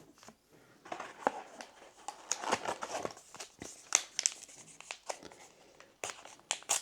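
Foil booster pack wrapper crinkling and tearing as it is opened, in a run of irregular crackles.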